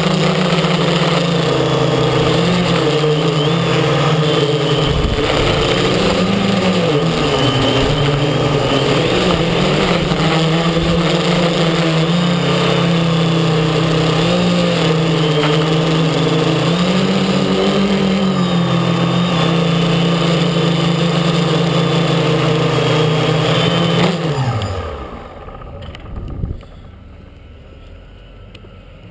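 X650 quadcopter's motors and propellers droning steadily, the pitch wavering up and down with the throttle. Near the end the motors spin down in a falling whine and the sound drops away.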